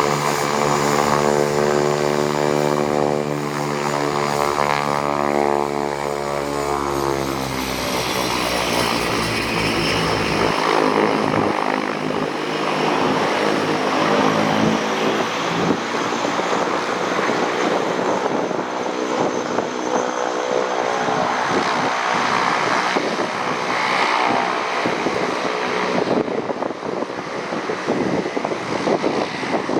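Cessna 208 Caravan single turboprop under power, its propeller drone and turbine whine dropping in pitch as it passes about seven seconds in, then fading to a rougher, steady rumble as it climbs away.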